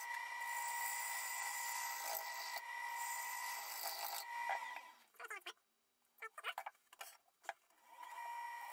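Wood gouge cutting a spinning sycamore blank on a lathe: a steady hiss of shavings being cut, with a steady high tone under it, for the first four and a half seconds. It then breaks off into a few short scraping touches separated by near silence, and the steady sound comes back near the end.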